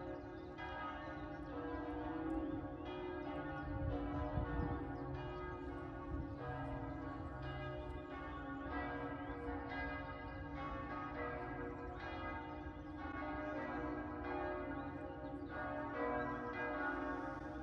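Church bells ringing in a steady, even run of strokes about one and a half a second, each stroke ringing on under the next.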